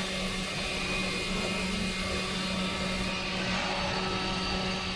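A steady machine hum with one constant low note, unbroken throughout.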